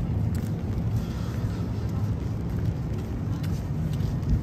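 City street ambience: a steady low rumble of road traffic.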